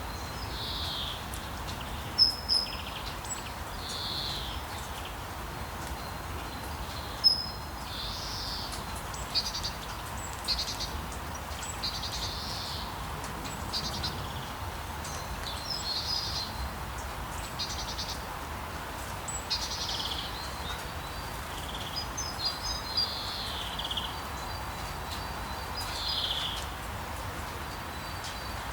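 Birds chirping: short, mostly falling calls every one to two seconds over a steady background hiss.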